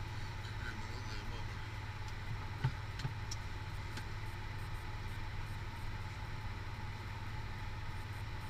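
Steady low hum of a car running, heard from inside the cabin, with a short sharp click about two and a half seconds in.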